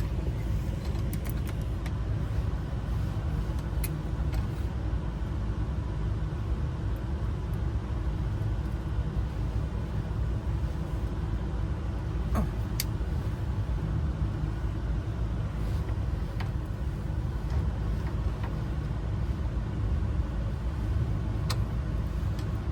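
Steady low rumble of a running vehicle engine, with a few scattered sharp clicks as small ignition lock parts are handled and pressed together.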